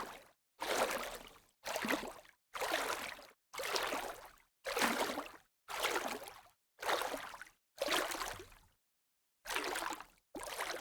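Sea-wave water noise chopped into short bursts about once a second, each starting abruptly and fading out, with dead silence between them and a longer gap near the end: the audio is gated or cut up rather than a natural surf.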